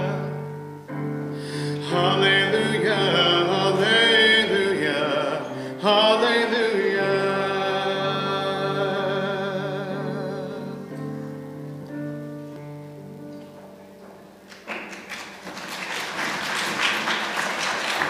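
A male cantor singing the last lines of a hymn over held keyboard chords; the voice stops, the final chord fades out, and applause breaks out a few seconds before the end.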